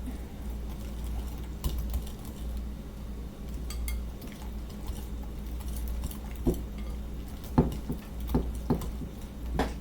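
Kitchen utensils knocking and clinking against dishes or a pan: scattered sharp knocks, more frequent in the second half, over a steady low hum.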